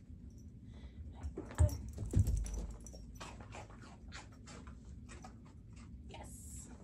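A dog moving about on a rug while changing positions: two heavy thumps about two seconds in, then a run of light clicks and taps from its paws and nails.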